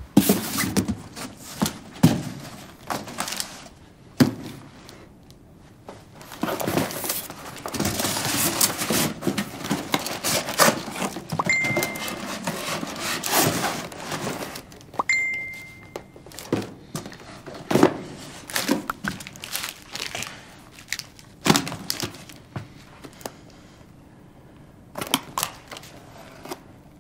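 A cardboard box being handled and unpacked: cardboard and packing rustling and crinkling, with many scattered thumps and knocks. About halfway through, a phone gives two short high beeps, the second one longer.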